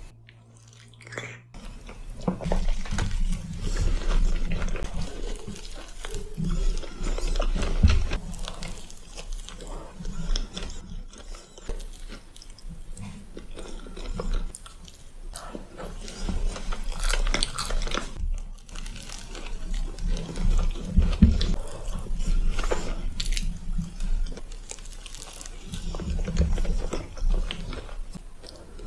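Close-miked chewing and biting of a strawberry cream puff made of flaky puff pastry and cream: irregular crisp crackles from the pastry among soft mouth sounds, pausing briefly near the start.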